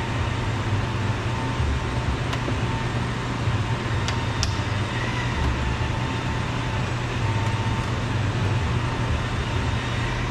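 Steady low droning hum with background noise, broken by a few faint light clicks, a couple of them about four seconds in, as plastic door-trim clips are worked loose.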